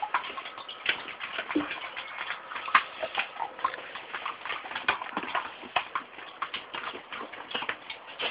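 Dog chewing on a plastic lighter: a run of irregular clicks and crunches of teeth on plastic, a few a second.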